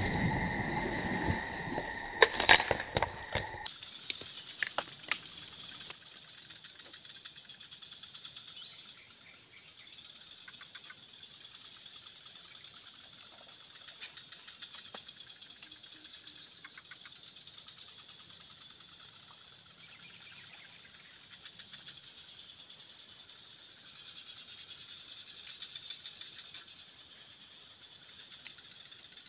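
A fish strikes at the surface in floating grass, a burst of splashing over the first few seconds. After that comes the steady high-pitched buzz of insects, with a few faint clicks.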